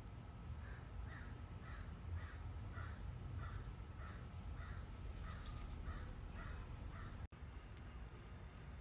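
A crow cawing repeatedly: about ten caws, evenly spaced a little over half a second apart, then stopping.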